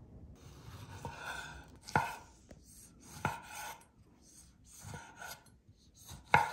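Large kitchen knife slicing tomatoes on a wooden cutting board. Each cut brings a short scrape through the tomato that ends in a knock of the blade on the board, about four knocks spaced a second or more apart.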